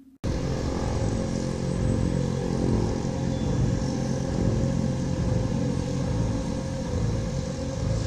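Dark ambient drone: a dense low rumble with steady held tones layered over it, cutting in abruptly just after the start and holding steady.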